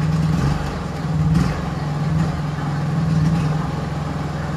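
Honda EU3000is inverter generator's single-cylinder engine, freshly started, running steadily at low speed with Eco Throttle on, still on gasoline. The engine speed rises briefly about a second and a half in, together with a click.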